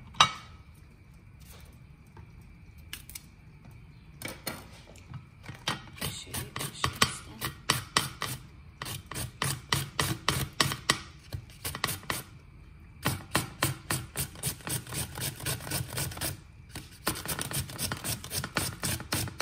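Cucumber being grated on a flat plastic hand grater: quick rubbing strokes, about four or five a second, in runs of a few seconds broken by short pauses. A single sharp knock sounds just after the start.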